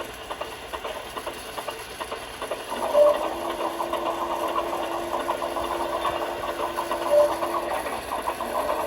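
Small electric motor of a model train car whirring with a fast rattle, starting a few seconds in and stopping near the end, with a few short electronic beeps over it.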